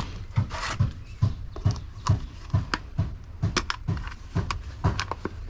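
Footsteps of a person walking at a steady pace on a hard floor, about two steps a second, with a few light clicks among them.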